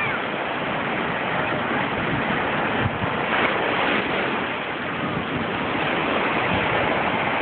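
Small waves washing up onto a sandy beach: a steady rush of surf.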